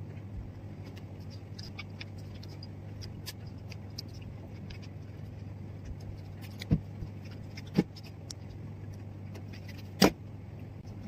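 Small ticks and clicks of someone eating watermelon and handling the slices over a steady low hum in the room. A few sharp knocks come in the second half, the loudest near the end as a knife is brought to the slice on a plastic plate.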